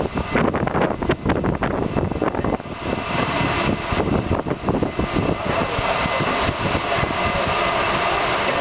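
Steady industrial machinery drone with a few high whining tones, with irregular knocks and clatter in the first few seconds.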